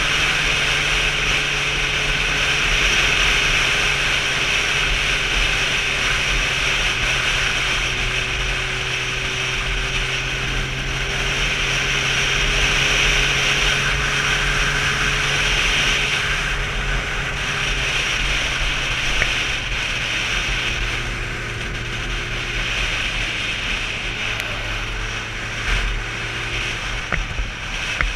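Motorcycle engine running at a steady cruise, heard from on the bike with wind and road noise rushing past. The engine note shifts a few times in the last third as the speed changes.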